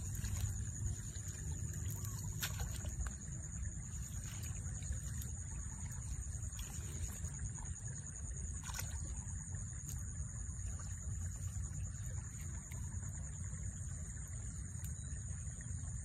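Low wind rumble on the microphone under a steady high insect drone, with a few faint clicks and splashes from hands working in shallow muddy water.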